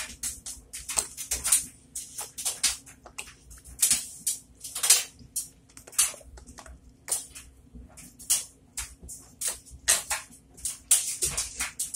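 Sponges soaked in lemon floor cleaner and bubble bath pressed and squeezed with a spatula in a bucket, giving short wet squelches and crackling suds, two or three a second in an uneven rhythm.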